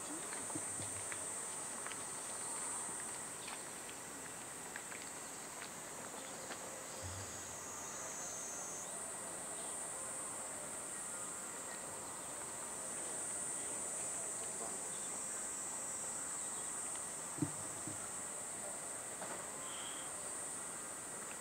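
Cicadas buzzing in a steady high-pitched drone, with scattered faint clicks and one sharp knock a little past three-quarters of the way through.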